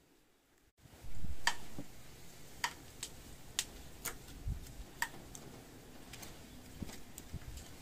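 Garden shears snipping through the stems of a loquat flower cluster as it is thinned: a string of sharp, irregular snips about once a second. There is a rustling knock of handling about a second in.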